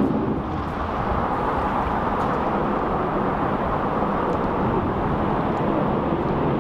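Steady low rumbling outdoor noise at an even level, with a few faint ticks above it.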